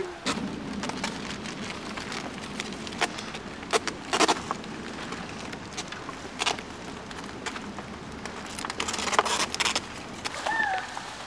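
Scattered rustles and clicks as cardboard dog cutouts on sticks are handled on dry leaves, over a steady low rumble. A short high call comes near the end.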